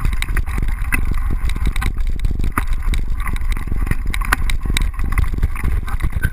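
Bike-mounted GoPro housing rattling and knocking in its mount as a mountain bike rides over rough singletrack, with a steady low rumble from the tyres and wind. The clatter comes from running the mount without the small white rubber locking plug.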